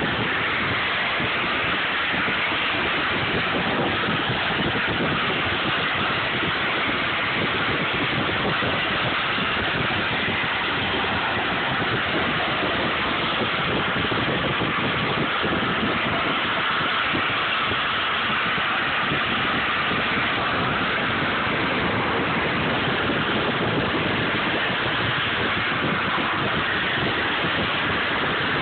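Steady rushing wind on the microphone and road noise from a car driving slowly with its window open, even and unchanging throughout.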